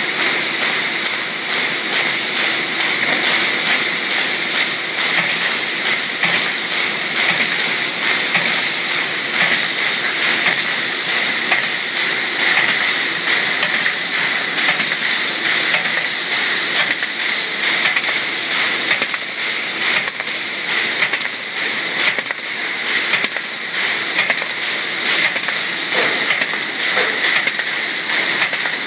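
A folder-gluer running steadily while gluing and plow-folding sheets into pocket folders: a constant mechanical hiss and whir from its belts and rollers, dotted with frequent light clicks.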